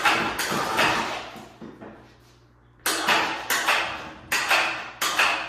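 Clattering knocks from an aluminum frame with tires fitted being swung over by hand. One burst at the start, then after a pause four sharp knocks in quick succession, each echoing.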